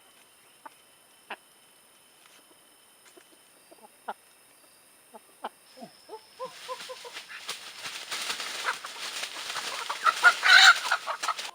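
Chickens clucking, sparse at first, then a quick run of clucks about six seconds in, building into loud, dense squawking over a rushing noise that peaks near the end and cuts off abruptly.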